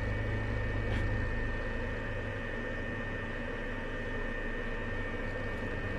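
MLAY RF radio-frequency skin-tightening machine switched on and running: a steady low hum with a faint constant high whine. A light tap comes about a second in.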